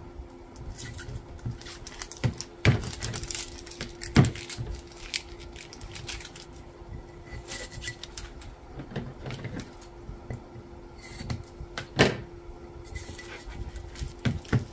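Plastic shrink wrap crackling and crinkling as gloved hands peel it off a hot sublimation glass can. A few sharp knocks come through, loudest about 4 s and 12 s in, over a steady low hum.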